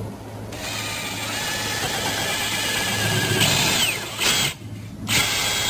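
DeWalt 20V cordless drill with a countersink bit boring a pilot hole through a 2x4 wooden trim board. It runs steadily for about three and a half seconds, gives a short burst, stops briefly, then runs again near the end.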